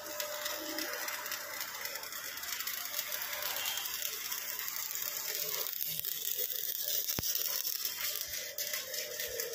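Stick (arc) welding on mild steel: a steady, dense frying crackle from the electrode arc, with one short knock about seven seconds in.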